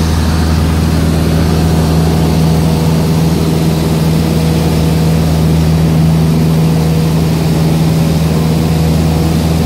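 Light aircraft's engine and propeller heard from inside the cabin in flight: a loud, steady, even drone that holds one pitch throughout.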